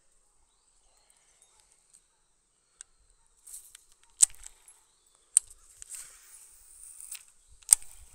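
Handling noise: a few sharp clicks, the loudest about four, five and a half and seven and a half seconds in, with scratchy rustling between them, over a faint steady high insect buzz.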